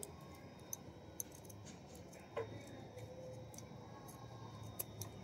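Scissors cutting through a cotton T-shirt's knit fabric: faint, scattered snips and clicks of the blades, the clearest about two and a half seconds in.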